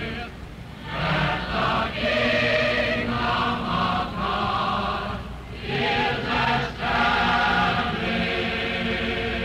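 A choir singing a hymn in long held phrases, with short breaks between phrases about half a second in and around five and a half seconds in.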